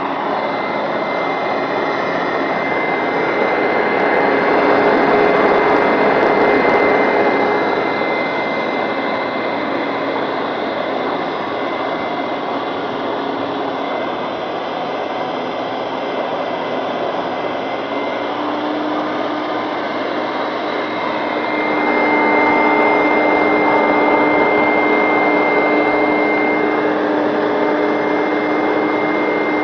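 Hoover Max Extract carpet cleaner running, a steady rush of suction with a high motor whine. It grows louder twice for several seconds and its lower tones shift partway through.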